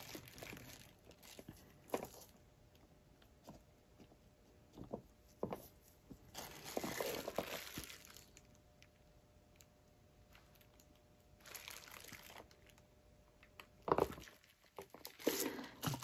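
Faint, scattered crinkling and rustling of plastic wrap and gloves as gloved hands handle a wet painted canvas on a plastic-covered turntable, with a few soft clicks and knocks.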